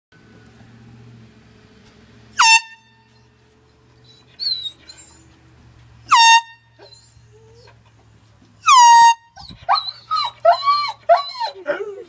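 Handheld air horn sounded in three short, loud, high-pitched blasts, the third the longest. After the third blast a dog answers with a quick run of howls rising and falling in pitch, about three a second.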